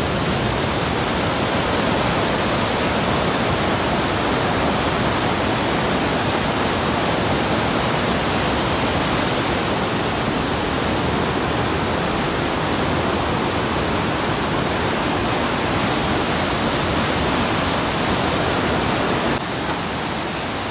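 Steady rushing of a river in flood: fast, turbulent, silt-laden water churning in standing waves and pouring over an embankment edge. It drops a little in level near the end.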